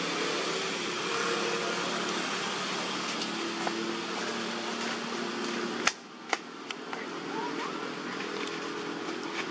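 Steady outdoor background noise with a low hum. A sharp click comes about six seconds in, followed by two fainter ticks, and the background is a little quieter after it.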